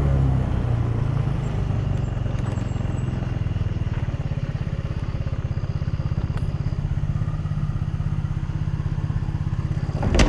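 A motor vehicle's engine running steadily with an even low pulse. A single sharp thump near the end.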